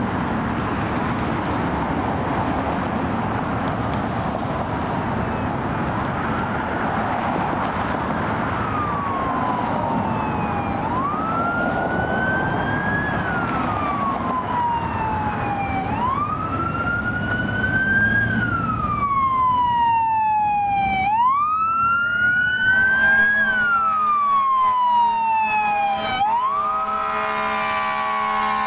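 Emergency vehicle's electronic siren in wail mode, rising and falling slowly about every five seconds, coming up out of road traffic noise as it approaches. Near the end a steady, deeper chord of several tones joins it.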